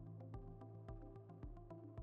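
Quiet electronic background music with a steady beat.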